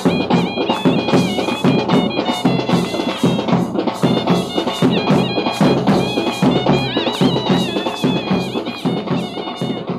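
Music: fast, dense drumming with a high, wavering, ornamented melody line above it.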